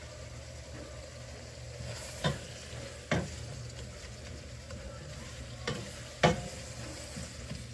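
Ground beef frying in a pot with onions, green peppers and celery, being stirred, with a spoon knocking sharply against the pot four times. A steady low hum runs underneath.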